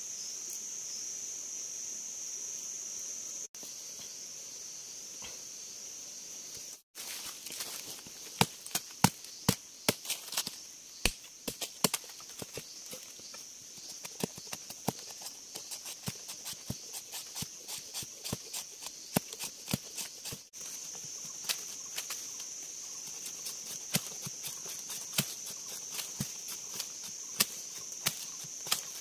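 Machete blade chopping and shaving a bamboo stick: a run of sharp, irregular knocks, several a second, starting about eight seconds in. Under it runs a steady high-pitched insect buzz.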